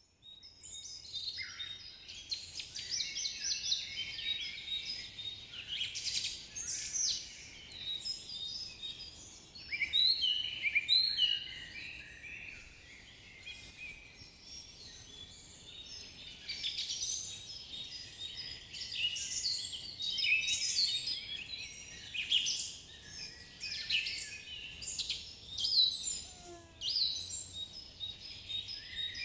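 Many birds chirping and singing at once: a dense, unbroken chorus of high, quick calls.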